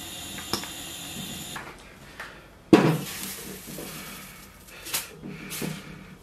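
Cookware being handled at the stove: a steady hiss for the first second and a half, then a sharp clatter a little under three seconds in. After that a cloth wipes round the inside of a wet iron wok, making short rubbing scrapes near the end.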